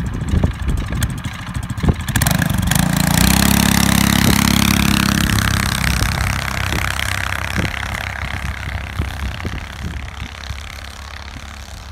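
Predator 212cc single-cylinder four-stroke engine on a homemade tracked snow bike running near idle, then revving up about two and a half seconds in as the bike pulls away through deep snow. The engine then fades slowly as the bike moves off.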